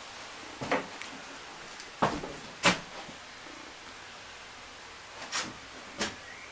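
About six sharp knocks, roughly in pairs, the loudest about two and a half seconds in, over a steady hiss.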